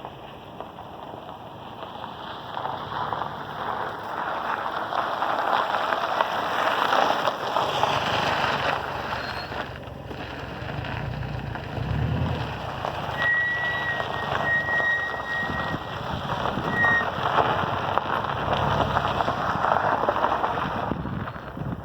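Tyre, road and wind noise from a car on the move, with a high-pitched brake squeal from the front Brembo pads on Brembo Gold four-piston calipers lasting about four seconds in the middle. The owner suspects poor-quality or counterfeit pads.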